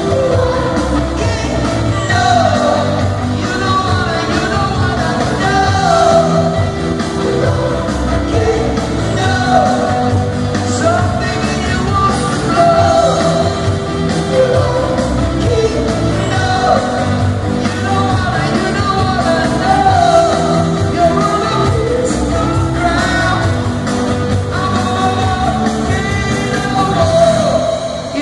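Live rock band playing in an arena: a male lead vocal sung over drums and electric guitar, at a steady, loud level.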